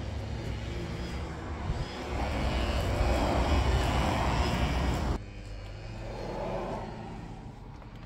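Low rumble of distant traffic, swelling louder and then cut off abruptly a little past halfway; a softer swell follows.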